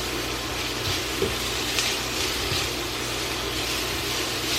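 Chopped garlic and onion sizzling in butter in a frying pan, stirred about once a second, over a steady low hum.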